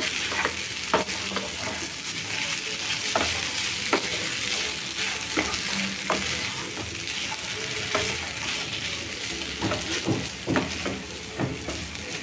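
Fried rice sizzling in a frying pan while a spatula stirs and tosses it, with a steady hiss and irregular scrapes and taps of the spatula against the pan.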